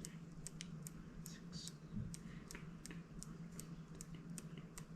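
Damping adjuster on an Unplugged Performance coilover shock being turned by hand, clicking from detent to detent at about three clicks a second while it is counted to the middle of its 32 settings.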